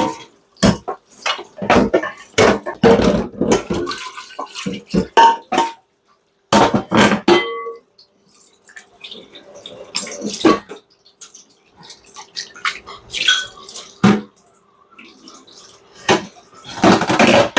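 Kitchen work at a sink: water splashing and dripping with irregular clatter of dishes and pots, over a faint steady hum.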